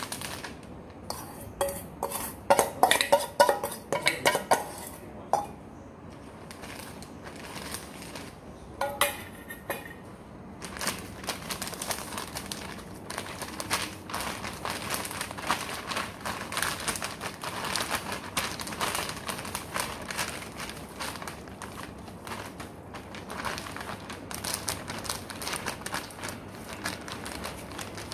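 Metal clinking against a stainless steel bowl, a cluster of sharp clinks a few seconds in and a couple more near nine seconds. After that comes continuous crinkling of a plastic zipper bag as the chicken inside is handled and massaged.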